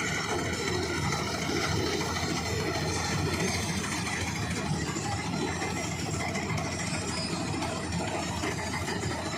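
John Deere 5310 tractor's diesel engine running steadily while driving a Standard TSC-513 combine harvester, with a light mechanical rattle.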